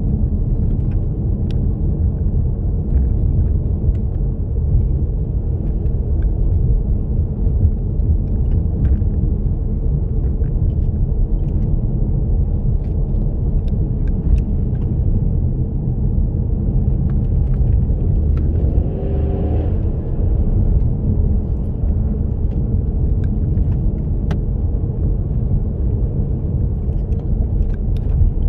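A 2016 Ford Mustang under way, its engine and tyre noise a steady low rumble, with scattered faint ticks.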